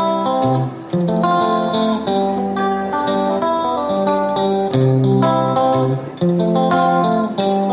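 Background music: a tune of plucked guitar notes over lower held notes.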